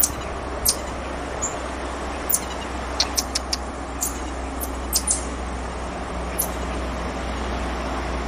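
Black-tufted marmosets giving a scatter of short, sharp, high-pitched chirps, several in quick succession about three seconds in, over a steady background rush of noise.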